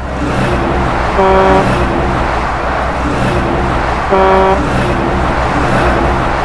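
Truck engine running with road noise, its horn sounding twice, about three seconds apart, each toot under half a second long.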